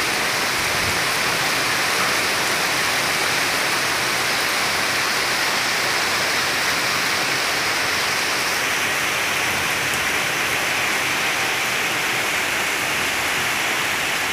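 Steady rain falling, a dense, even hiss with no thunder.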